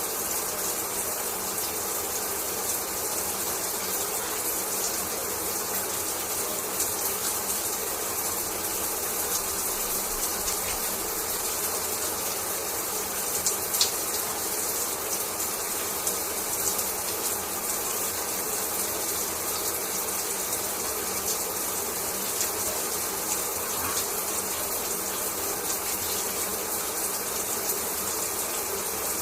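Shower water running steadily, a constant hiss of spray with many small sharp ticks and patters of drops, a few louder ones about halfway through.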